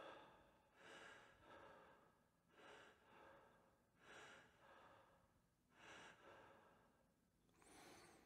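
Near silence, with faint short breathy puffs of noise about every second or so.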